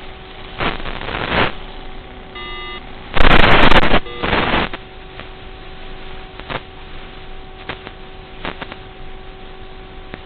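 Bursts of rough, rustling noise over a faint steady hum, loudest about three seconds in. A short electronic beep sounds just before the loudest burst, and scattered clicks follow.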